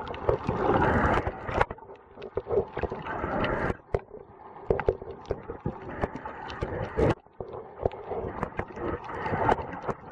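Muffled water sloshing and gurgling around a waterproof camera, with scattered clicks and knocks, swelling and fading.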